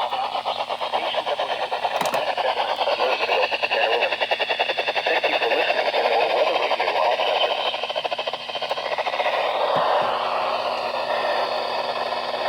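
Weather radio receiver hissing and crackling with static from a weak NOAA Weather Radio signal, a fast buzzing crackle over steady noise with a low hum.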